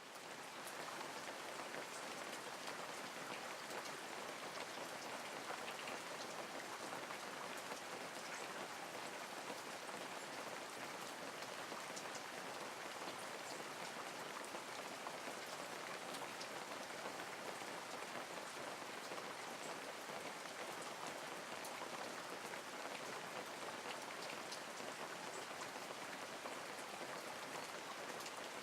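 Steady rain falling: an even hiss with scattered individual drop ticks.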